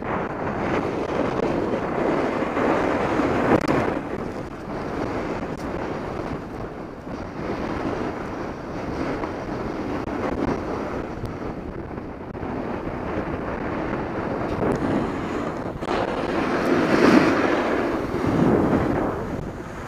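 Wind buffeting the microphone while riding fast down a groomed ski slope, over the hiss and scrape of a snowboard sliding on packed snow. The rushing swells with the turns, loudest about three and a half seconds in and again around seventeen seconds.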